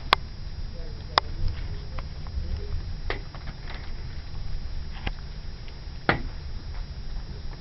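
Night thunderstorm: a steady low rumble with about five sharp cracks or clicks spread a second or two apart.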